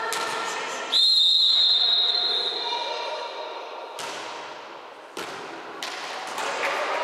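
Referee's whistle blown in one long, steady blast about a second in, echoing in a sports hall, followed by two sharp thuds of the volleyball about a second apart.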